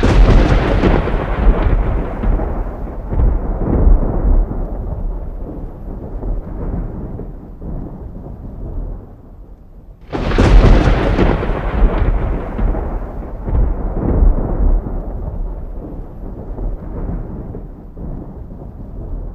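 Two thunderclaps about ten seconds apart, each a sudden crack followed by a long rolling rumble that slowly fades.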